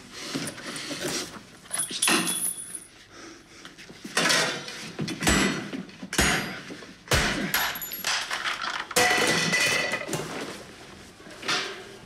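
A string of loud metallic clatters and bangs from a frying pan swung and kitchen things knocked about, about eight sharp impacts with short metallic ringing.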